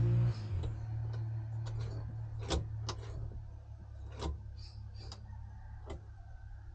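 Scattered irregular clicks and ticks over a low steady hum.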